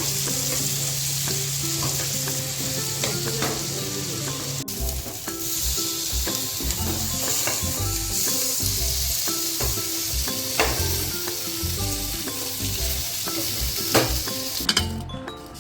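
Marinated chicken liver pieces shallow-frying in hot oil, a steady sizzle with occasional light clicks, cutting off about a second before the end.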